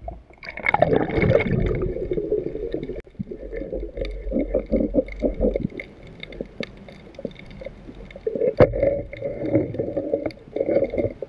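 Water gurgling and sloshing close to the microphone in irregular muffled surges of a second or two each, with scattered sharp clicks.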